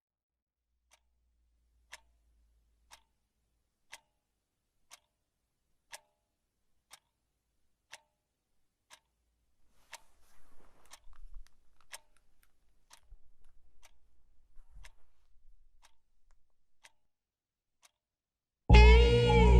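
A clock ticking about once a second, faint and even, with some faint low rustling in the middle. Near the end, loud music cuts in suddenly.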